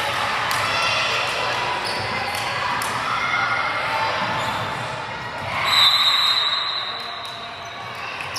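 Basketball dribbling and bouncing on a gym court amid spectators' chatter and shouts. About six seconds in comes a long, high, steady whistle blast from a referee's whistle.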